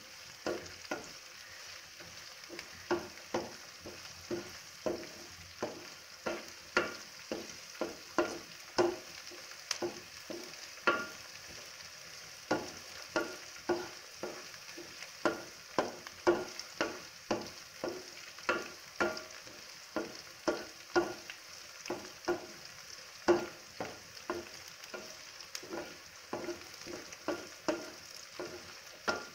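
A wooden spatula scraping and knocking against a metal pan as sliced onions and green chillies are stirred in hot oil, about one or two strokes a second, over a steady sizzle of frying.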